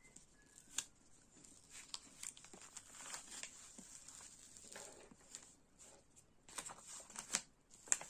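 Clear protective film being peeled back off the adhesive surface of a diamond painting canvas: faint crinkling and crackling as the film lifts from the glue, with a few sharper snaps late on.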